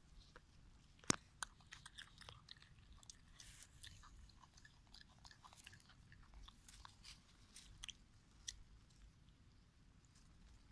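Baby macaque nibbling and chewing a leaf: faint, irregular small clicks and crackles, the sharpest about a second in.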